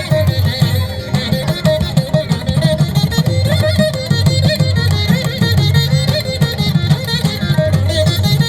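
Carnatic-style instrumental music led by a plucked veena, playing a quick run of notes over a steady low drone.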